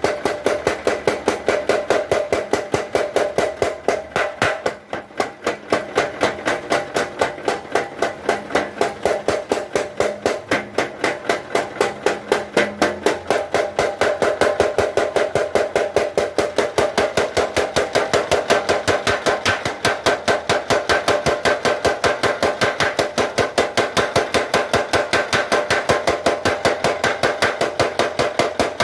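Mechanical blacksmith's power hammer running, its ram striking in a fast, even rhythm of about four blows a second with a metallic ring. The rhythm falters briefly about five seconds in.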